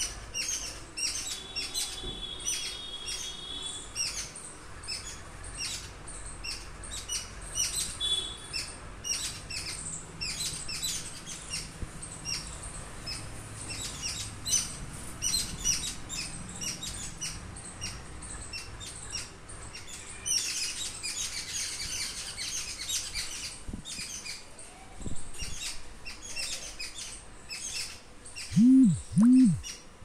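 Small birds chirping busily in many short, high chirps, with a thicker burst of chirping about twenty seconds in. Near the end, two loud, low calls, each rising then falling, stand out over the chirping.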